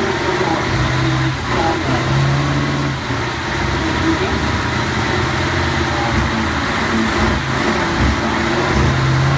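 Scania truck's diesel engine held at high revs during a burnout, the rear drive wheels spinning on the wet track; the engine note rises and falls a little as the throttle is worked.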